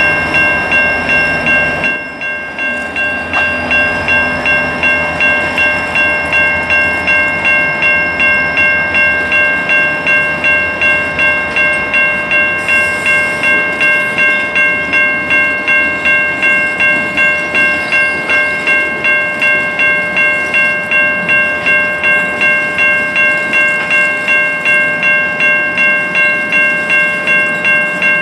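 Level-crossing warning bell ringing steadily, about two strokes a second, while passenger cars roll past over the rails.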